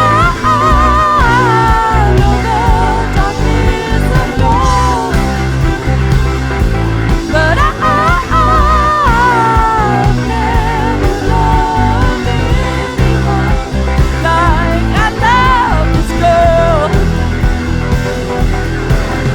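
Rock music: a band plays with a sustained low end under a lead melody that bends and wavers in pitch, in phrases of a few seconds each.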